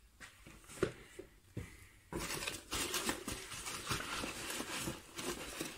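Hand rummaging through a box of foam packing peanuts: a few light clicks and rustles at first, then from about two seconds in a dense rustling and crinkling of the foam pieces shifting against each other.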